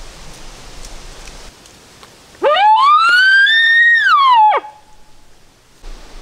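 Elk bugle: a single call of about two seconds. It climbs steeply to a high whistle, holds it for about a second, then falls away abruptly.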